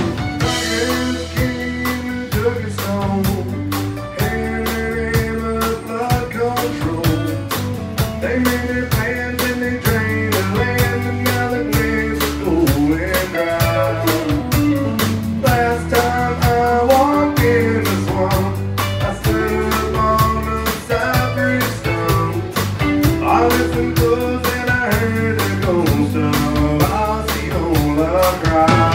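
Live country band playing: acoustic and electric guitars, fiddle and drums keeping a steady beat, with a man singing the lead.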